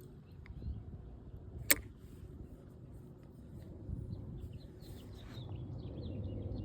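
Small birds chirping in quick short calls through the second half, over a low steady rumble, with one sharp click a little under two seconds in.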